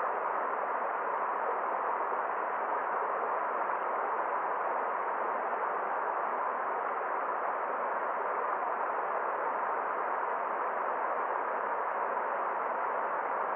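Forest stream water flowing in a steady, even rush, with no high hiss.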